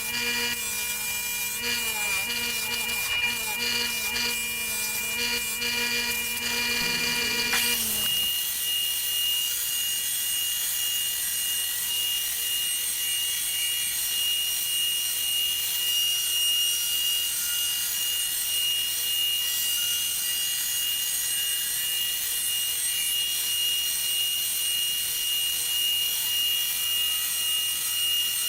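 Electric belt sander running with a steady high whine. About eight seconds in, a hiss of steel grinding on the abrasive belt takes over as the draw knife blade is laid on the belt without pressure to sharpen it.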